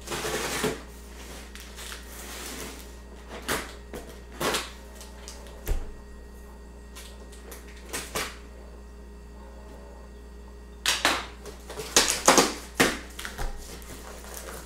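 A cardboard shipping box being opened: scissors scrape and cut along the packing tape in a few short strokes, then, about eleven seconds in, a louder run of tape tearing and cardboard flaps rustling.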